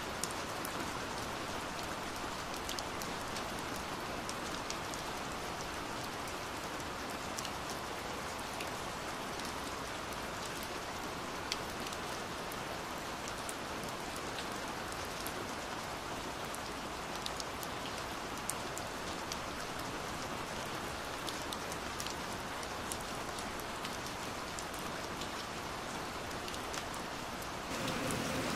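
Steady heavy rain hitting window glass: a continuous hiss peppered with sharp taps of individual drops. Near the end the rain gets slightly louder and fuller.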